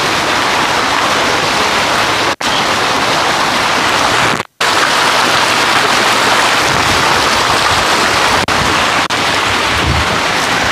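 Man-made waterfall: water spilling in thin sheets over a ledge and splashing into the pool below, a steady rushing splash. It cuts out abruptly for a moment about two seconds in and again about four and a half seconds in.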